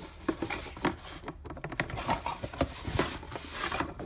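A cardboard toy box being opened and unpacked by hand: flaps and packaging rustling, with many small clicks and taps from loose plastic LEGO pieces and bags being handled.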